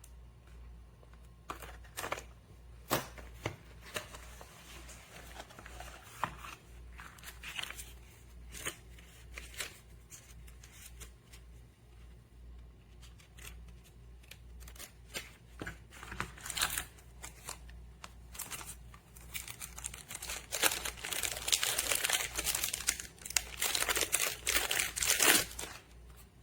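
Rustling and crinkling handling noise with scattered sharp clicks, growing dense and louder over the last six seconds or so.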